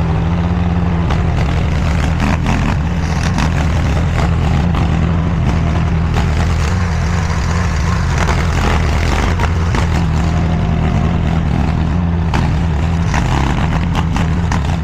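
Engine of a DIGGIT SCL850 stand-behind mini skid steer running steadily under work, with scattered short clanks over the engine note.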